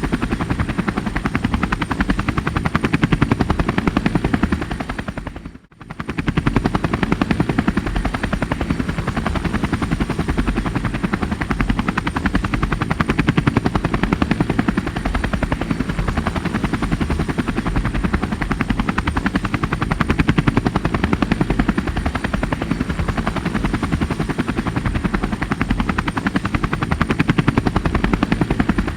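Helicopter rotor beating in a steady, fast chop, with a faint high whine above it. About five and a half seconds in, the sound dips out briefly and comes straight back.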